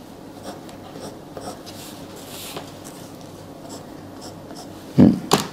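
Pen scratching on paper as closing lines and figures are written under an account. About five seconds in, a few loud sharp knocks.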